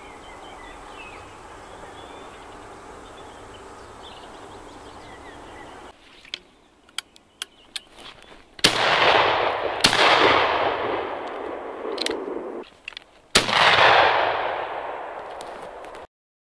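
Shotgun fired three times, each shot a sharp crack followed by a long rolling echo that slowly fades. The second shot comes about a second after the first, the third a few seconds later. Before the shots there is a steady faint background, then a few small clicks.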